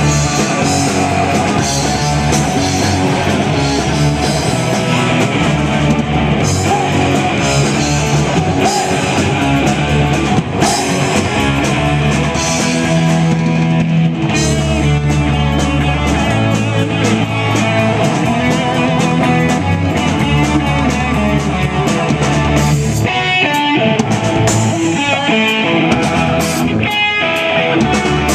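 A rock band playing: electric guitar and drum kit.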